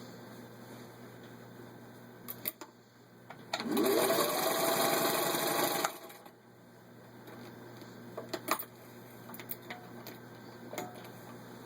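Singer 15-91 sewing machine's gear-driven motor whirring up to speed and stitching rapidly through six layers of denim for about two seconds, then stopping. A few sharp clicks come before and after the run.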